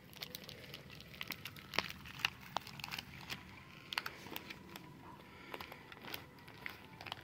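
Faint crinkling of plastic packaging as small hands handle a packaged set of foam bath sponges, with scattered light clicks and rustles.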